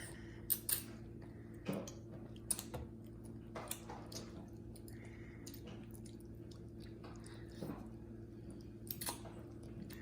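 Spaghetti being chewed close to the microphone, with short wet mouth smacks every second or so, over a steady low hum.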